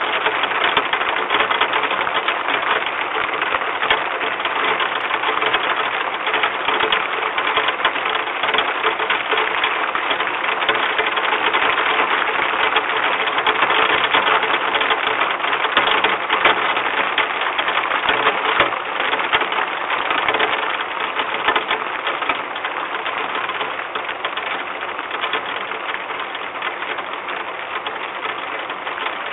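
Heavy rain pattering steadily on a nest box during a storm, picked up by the nest-box camera's microphone as a dense, even hiss of fast patter.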